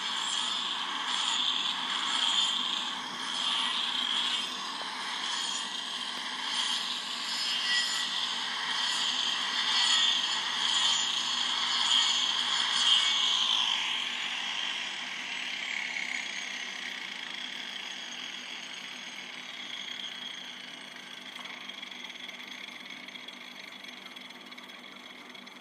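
Electric angle grinder sanding down a wooden hoof block glued to a cow's claw, taking wood off one side to change the block's angle. It runs with a high, steady grinding whine for about half the time, then fades and drops in pitch.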